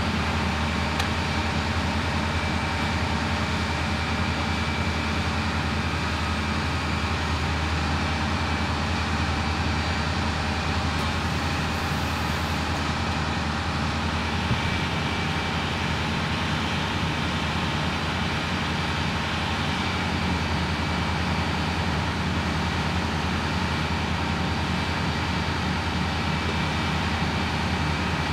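Heavy vehicle engines running steadily: a constant low hum under a steady rushing noise, with no change.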